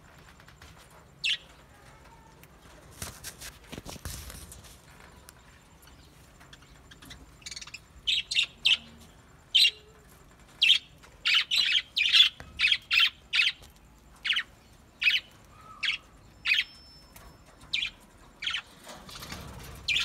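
Budgerigars chirping: a single short, sharp chirp near the start, then a run of about two chirps a second from about eight seconds in. A brief rustle of wing flaps comes around three to four seconds in.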